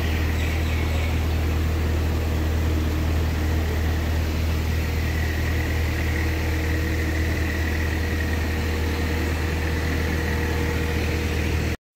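Steady low mechanical hum with a constant rush of noise, like a motor running. It cuts off suddenly near the end.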